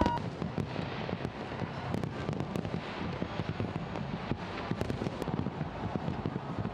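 Fireworks going off: a dense, continuous crackling of many small bangs and pops.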